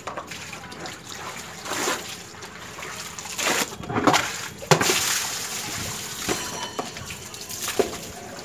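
Water poured from a plastic bowl splashing onto a soaked towel on a concrete floor, with sloshing and trickling as the towel is hand-washed. The splashes come in irregular bursts, the loudest a little past the middle.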